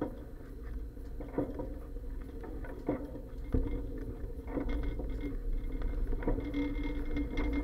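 Bicycle riding heard through an action camera's waterproof case mounted on the bike: a low steady rumble with several sharp clacks and bumps from the bike at uneven intervals.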